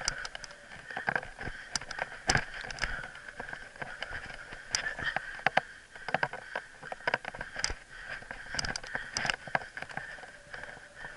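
Mountain bike ridden over a dirt singletrack: irregular rattles and knocks as it goes over bumps and roots, over a steady hiss.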